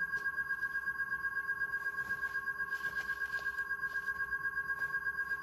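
Elegoo Mercury wash station running, stirring a resin print in isopropyl alcohol: a steady two-note whine that pulses rapidly and evenly, several times a second.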